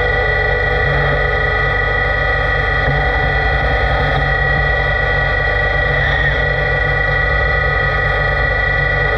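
LT-65 lathe running steadily, a continuous machine hum and rumble with a constant whine above it.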